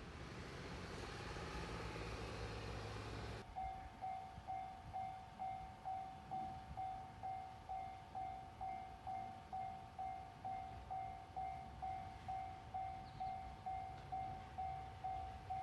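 JR 115-series electric train running past with a broad rumble that cuts off abruptly about three seconds in. Then a Japanese level-crossing warning bell rings steadily, about two strikes a second, to the end.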